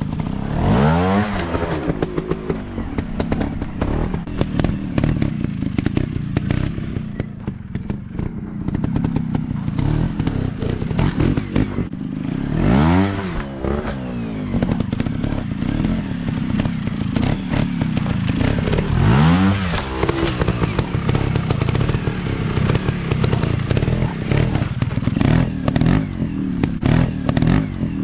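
Dirt-bike engine running on a trail, revving up and back down several times (about a second in, around 13 s and around 19 s), with clattering knocks throughout.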